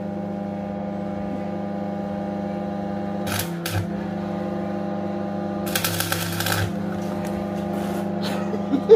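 Steel security grill clinking and rattling against the door frame while it is handled into place: a few clicks about three seconds in and a longer rattling run around the middle, over a steady hum.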